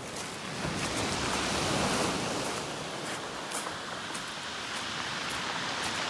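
Surf washing up a pebble beach: a steady rush of foaming water with scattered small clicks.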